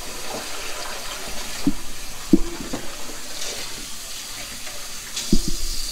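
Kitchen tap running into a soapy air fryer basket in the sink, water splashing steadily. A few knocks, about two seconds in and again near the end, as the basket is handled.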